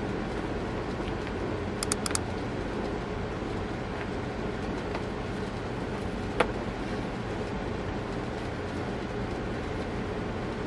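Steady background hum with small handling sounds from a cardboard box being touched on a table: a quick run of about four light clicks about two seconds in, and one sharp tap a few seconds later.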